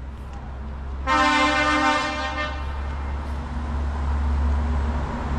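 A vehicle horn gives one steady blast of about a second and a half, over a continuous low rumble that grows louder toward the end.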